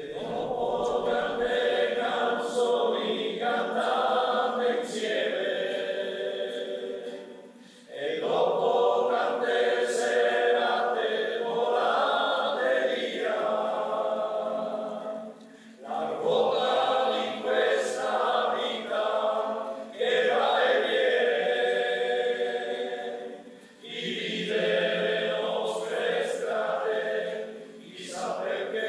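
A choir singing in long sustained phrases, each breaking off briefly about every eight seconds before the next begins.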